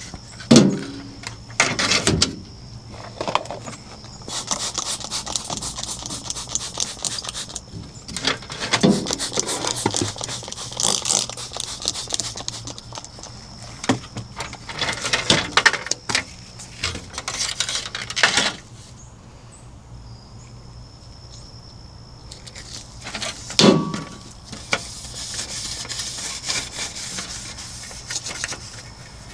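Scrubbing and wiping a refrigerator's surfaces: spells of rapid back-and-forth rubbing strokes a few seconds long, with a few sharp knocks, the loudest about half a second in and near the 24-second mark. A steady high insect trill runs underneath.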